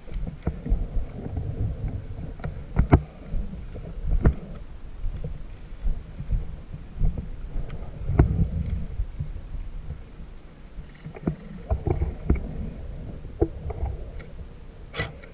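Rumbling wind and handling noise on a player-worn camera microphone, with several sharp knocks and clicks, the loudest about three seconds in.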